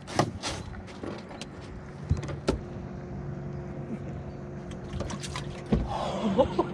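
Small outboard motor running steadily with a low hum, under a series of sharp knocks and clunks from the fish and gear being handled on the boat's deck, the loudest just after the start.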